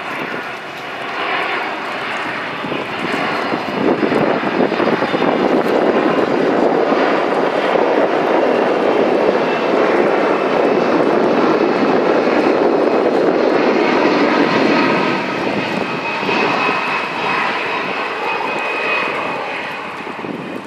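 Boeing 767-300ER jet airliner on landing approach, its twin turbofan engines growing louder as it passes, loudest for several seconds and then easing off. A high engine whine stands out near the end as it flies away.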